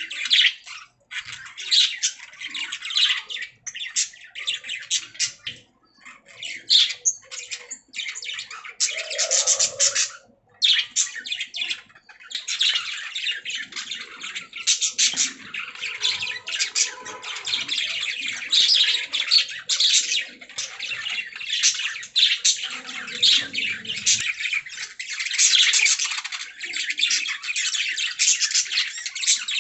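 Budgies (pet parakeets) chirping and warbling in dense, rapid chatter with squawks, broken by a few short pauses in the first twelve seconds and then continuous.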